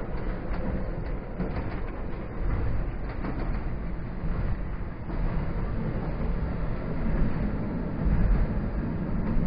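Running noise heard from aboard a PKP EN57 electric multiple unit in motion: a steady rumble of wheels and running gear on the track.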